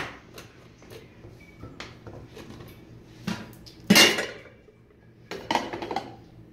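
Stainless steel pot lid lifted off a steel pot with a sharp metallic clank about four seconds in, followed by a few softer clatters of metal near the end.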